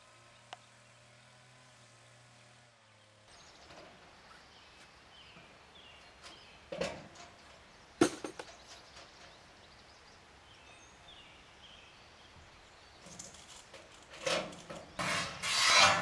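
Curved corrugated steel building panels clanking, scraping and knocking as they are handled and fitted together, with a few sharp metallic knocks and a louder run of clatter near the end. A faint steady hum fills the first three seconds before the clatter begins.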